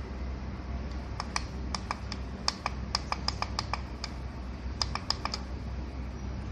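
Keypad buttons of a Loreda hunting camera clicking as they are pressed to step through its setup menu, in irregular runs of quick clicks over a low steady hum.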